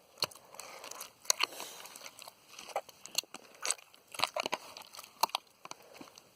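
Water-soaked slime being squeezed and pressed by hand, giving off irregular sharp wet pops and crackles.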